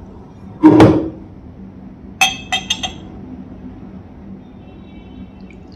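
A dull knock about half a second in, then four quick ringing clinks of a glass bottle's neck against the rim of a drinking glass as the drink is poured.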